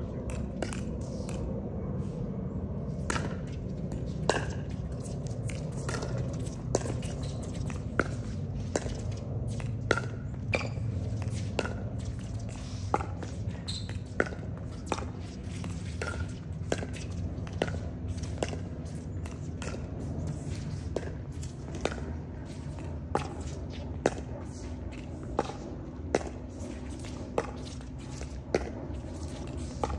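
Pickleball being played: sharp pops of paddles striking the hollow plastic ball, about one a second, over and over.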